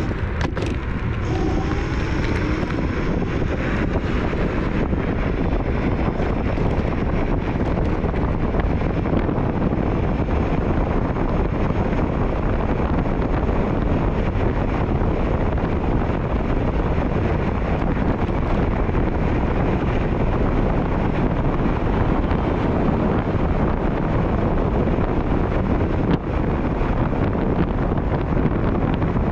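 Wind buffeting an action camera's microphone as an electric scooter is ridden at speed, a steady low rush. In the first few seconds a faint rising whine from the scooter's electric motor comes through as it accelerates.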